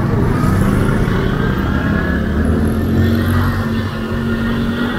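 Motorcycle engine running steadily while riding, heard from the bike itself as a low drone.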